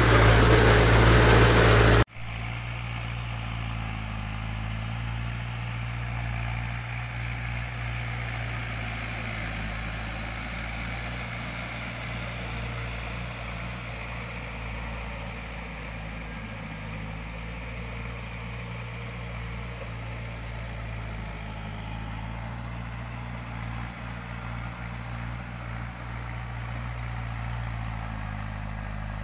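Mahindra Bhoomiputra 475 DI tractor's four-cylinder diesel engine running steadily under load while cage-wheel puddling a flooded paddy field. Loud and close for the first two seconds, then it cuts suddenly to a quieter, more distant steady engine drone.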